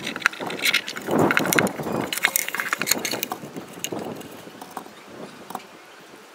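Handling noise of a light-strip cable and its small plastic plug connectors: quick clicks and rattles with a scraping rustle about a second in as the cable is pulled through a hole in a wooden box, then quieter fiddling as the plugs are fitted together.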